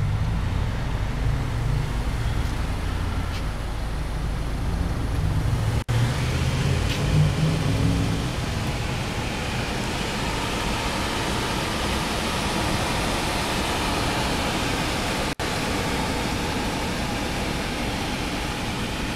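Audi A4's 2.0-litre turbocharged four-cylinder engine idling, a steady low rumble with a hiss above it. After about eight seconds the rumble thins and mostly a steady hiss remains.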